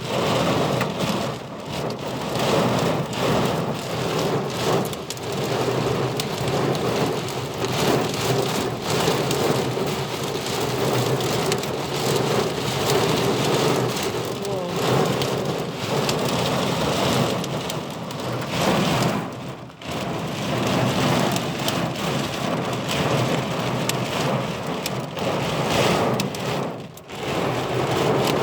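Heavy rain pouring steadily in a storm. The downpour dips briefly twice, about two-thirds of the way through and again near the end.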